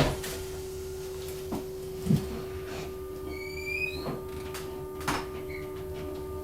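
Interior of a Class 319 electric train: a steady electrical hum with scattered clicks and knocks, and a short, high rising squeak about three and a half seconds in.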